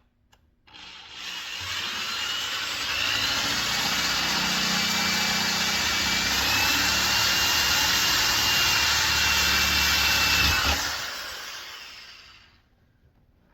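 Electric drill boring a hole through a plastic car bumper. The motor whines steadily, steps up in pitch around six seconds in, and is released near eleven seconds, then winds down.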